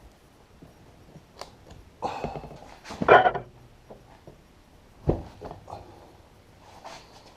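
Hand tools knocking and scraping against a mower wheel while a stiff old tire is worked off the rim. There are scattered knocks, a longer scrape about two to three and a half seconds in, and a sharp thud about five seconds in.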